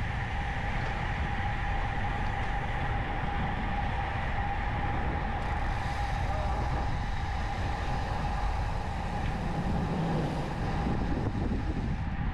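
Road bike riding on coarse asphalt: wind rushing over the camera microphone and tyre roar make a steady, even noise, with a constant high hum running through it.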